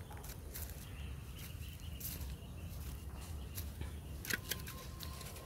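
Outdoor riverbank ambience: a steady low rumble on the microphone under scattered rustles and footsteps in the undergrowth, with two sharp clicks a little past four seconds in.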